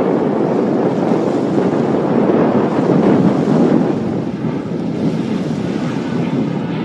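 Wind buffeting the microphone over waves washing on a rocky shore, with the low rumble of a jet airliner's engines on its landing approach mixed in. The rumble swells a little about halfway through.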